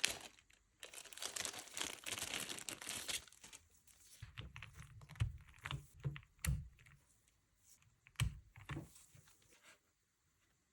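Packaging crinkling and rustling for about three seconds, then scattered sharp clicks and dull knocks of things being handled, ending shortly before the end.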